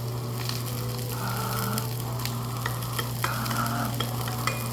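Beef sizzling on a tabletop barbecue grill, a steady hiss with scattered small pops and clicks, over a steady low hum.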